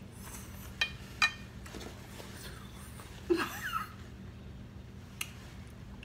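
Mouth sounds from taking a spoonful of hot red beans and rice: two sharp clicks about a second in, then a short wordless vocal sound falling in pitch as she reacts to the heat, and one more click near the end, over a steady low hum.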